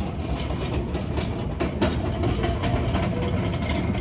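Airport terminal ambience: a steady low rumble, like engines or building machinery idling, under a faint busy background, with one sharp clack a little under two seconds in.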